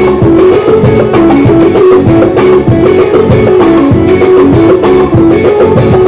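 Live band playing an instrumental passage: a repeating electric guitar figure over a drum kit keeping a steady dance beat.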